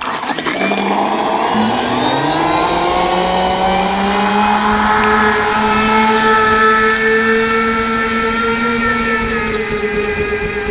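An RC jet ski's 1500kv brushless motor on 4S Lipo power starts abruptly and whines up in pitch over the first two seconds. It then runs steadily at speed over a hiss.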